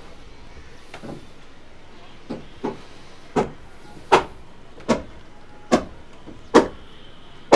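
Footsteps on the wooden deck planks of a fishing launch, a steady walking pace of about one step a second, starting about two seconds in and growing louder.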